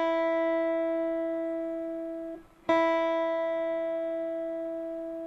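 Telecaster-style electric guitar's high E string plucked as a tuning reference note. The first note is already sounding and is damped a little over two seconds in. The string is then plucked again and rings on, slowly fading.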